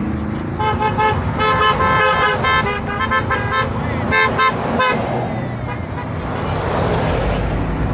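Vehicle horns beeping in a quick series of short honks for about four seconds, over the sound of passing engines. The engine and road noise grows louder near the end.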